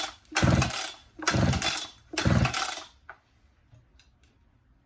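Two-stroke chainsaw being pull-started on choke, its recoil starter cord yanked in quick pulls about a second apart. The engine spins over but does not catch, and the pulls stop about three seconds in.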